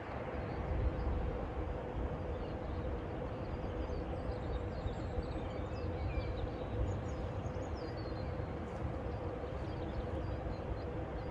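Outdoor mountain-valley ambience: a steady low rumble with a faint constant hum, and scattered faint high bird chirps throughout.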